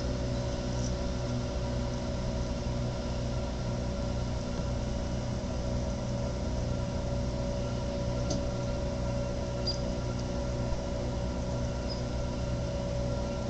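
Steady drone of a pumping station: an even low hum with several steady pitched tones above it. A few faint, brief high chirps come through now and then.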